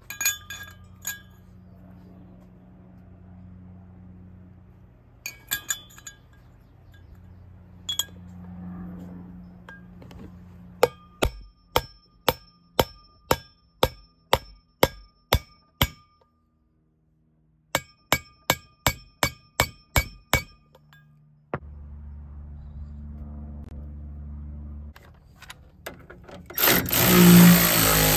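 Hammer striking a race driver to seat a wheel bearing race into a truck's front hub-and-rotor: two runs of evenly spaced, ringing metallic blows, about two to three a second, with a short pause between. Near the end a loud burst of a different mechanical noise takes over.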